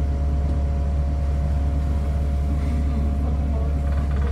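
City bus engine running with a steady low drone and a faint, steady higher whine above it.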